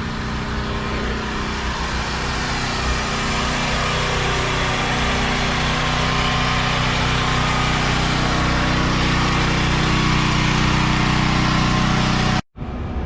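Hot rod engine running steadily at idle, gradually growing a little louder, then cut off abruptly near the end.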